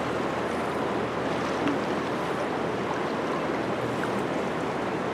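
Steady rushing noise of fast-flowing river water, even and unbroken.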